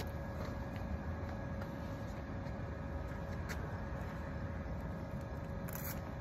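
Steady low rumble of urban background noise, with a faint steady hum and a few light clicks.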